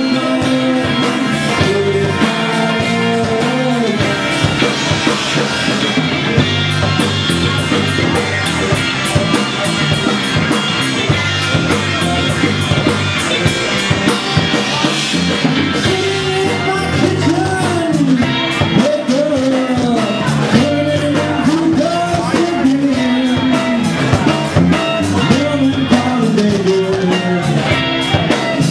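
Rock music with drums keeping a steady beat under guitars and a melodic lead line.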